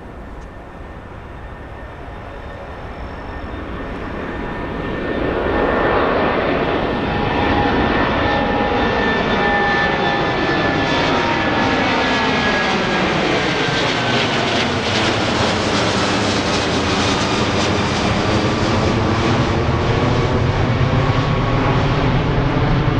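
Airbus A330 jet engines at takeoff power as the airliner climbs out overhead. The sound swells over the first six seconds, then stays loud. A whining tone slides down in pitch as the jet passes, and a deep rumble builds near the end as it moves away.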